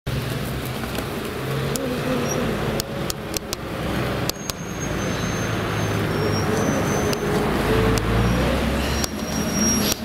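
Urban road traffic running past: a steady low engine rumble with a faint, slowly rising whine. A few short sharp clicks come through it about three to four seconds in.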